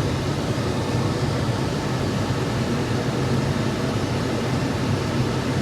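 Combine harvester heard from inside the cab, its engine and cab fan running in a steady drone with a low hum.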